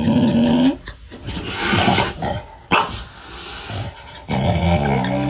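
A dog vocalizing in several separate outbursts with short pauses between them, opening with a held pitched tone.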